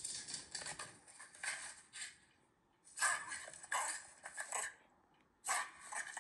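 Audio of a Shiba Inu's frantic indoor romp playing back from a phone video: bursts of scrabbling and clattering. There is a lull a couple of seconds in, then louder bursts about three seconds in and near the end.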